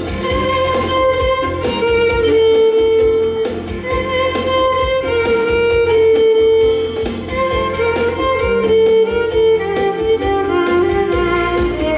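Violin playing a melody of long held notes over a band accompaniment with a steady beat and bass.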